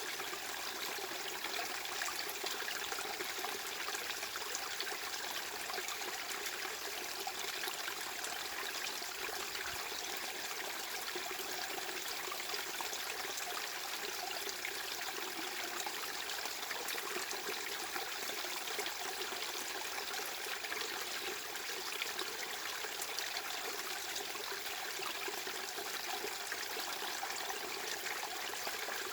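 Steady white noise: an even hiss with little bass, unchanging throughout.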